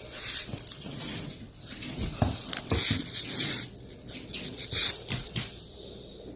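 A dog breathing noisily: a few irregular hissing breaths, the loudest near the middle, with soft low thumps.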